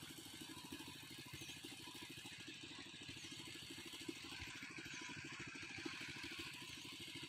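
Faint, steady rapid putter of a small engine running, with a short high chirp repeating every couple of seconds.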